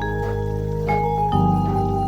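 Background music: soft mallet-percussion tones, marimba- or vibraphone-like notes over held chords.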